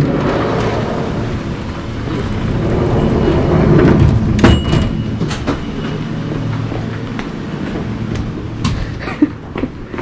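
Wooden sliding door rolling open and shut, a steady rumbling rush that swells about three to four seconds in, followed by a few scattered knocks and clicks.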